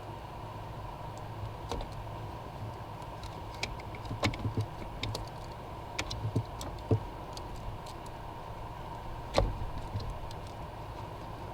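Knife cutting a rubber heater hose off a plastic three-way connector, with a scattering of sharp clicks and knocks from the cutting and handling, the loudest about nine seconds in, over a steady background hum.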